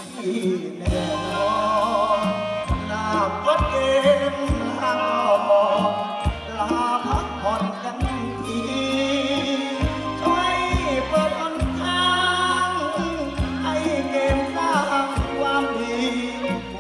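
A man singing a Thai song into a microphone through the PA, backed by a live band with a steady bass line and a regular drum beat.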